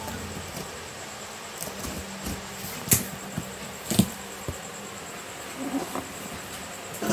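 A cardboard parcel being opened and its packaging handled: small knocks and scrapes, with two sharp snaps about three and four seconds in.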